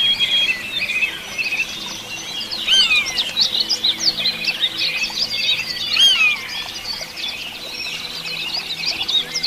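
Many small birds chirping and twittering at once, a dense chorus of short overlapping calls, with a couple of louder swooping whistles about three and six seconds in.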